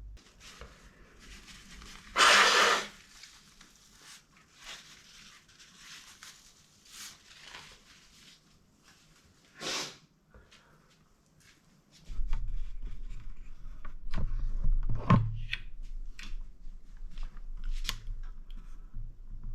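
A forceful sneeze blast about two seconds in and a shorter one near the middle, with faint short breaths between. In the second half come scattered rustles and clicks over a low hum.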